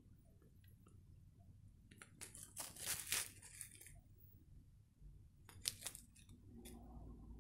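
Small clear plastic bag of rhinestone beads crinkling as fingers handle it: a run of crackles from about two seconds in, loudest around three seconds, and a shorter burst near six seconds.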